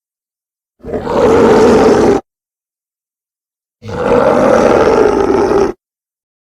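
Two deep monster roar sound effects, the first about a second and a half long and the second about two seconds, with dead silence before, between and after them.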